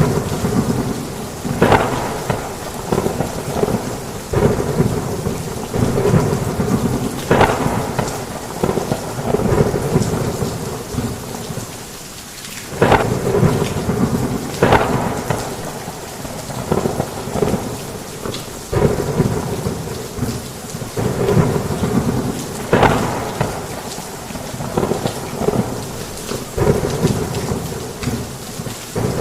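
Heavy rain with thunder crackling and rumbling throughout. There is a brief lull about twelve seconds in, followed by a sharp thunderclap.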